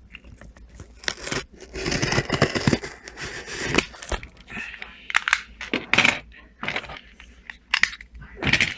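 A package being torn and cut open by hand: irregular tearing and crinkling of packaging in quick bursts.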